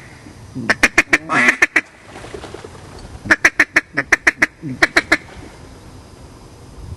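Mallard-style quacking: two runs of quick, loud quacks, one about a second in and a longer one from about three seconds in.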